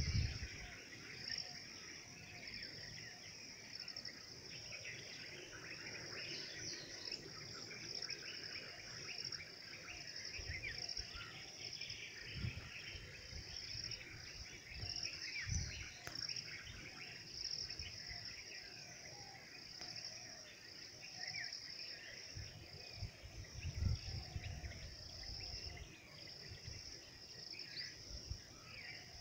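A steady, high-pitched drone of insects with a slight pulse, with scattered bird chirps over it. A few low bumps come through, the loudest about three-quarters of the way through.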